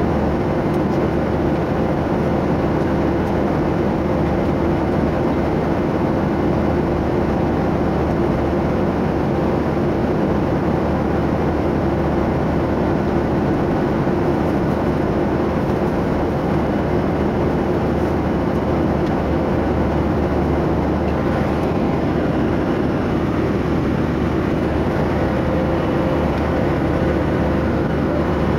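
Steady cabin noise of an airliner in cruise: the even rush of air and engines, with a constant hum in the low-middle range.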